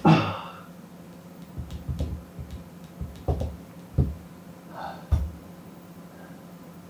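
Ab-wheel workout on a wooden floor. A sharp effortful exhale at the start, then several low thuds and knocks as the wheel and body move on the mat and floor, with short breathy sounds between them.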